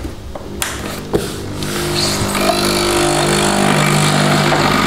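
Capsule coffee machine (Nespresso-type) clicking, then its pump starting about a second in and running with a steady hum that grows louder after another second.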